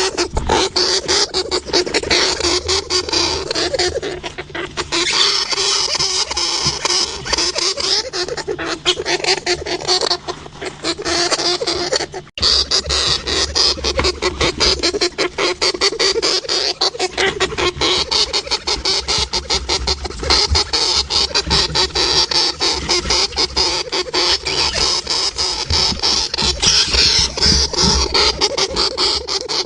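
Hamster noises: a fast, dense run of clicks and scratchy sounds, broken by a sudden cut about twelve seconds in.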